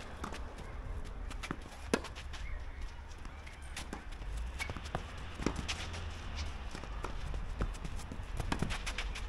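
Footsteps and scattered light knocks on a tennis court, with one sharper knock about two seconds in, over a steady low rumble.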